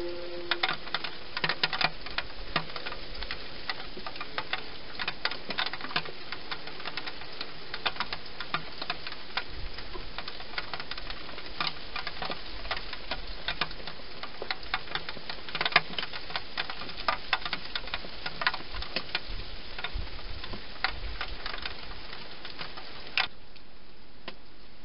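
Wild European hedgehog crunching dry food at a bowl inside a plastic feeding box: an irregular run of sharp clicks and crackles over a steady hiss, several a second, ending abruptly near the end.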